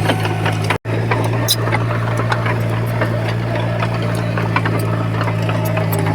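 Heavy earthmoving machine's diesel engine running steadily, with scattered clicks and clanks over it. The sound cuts out for an instant just under a second in.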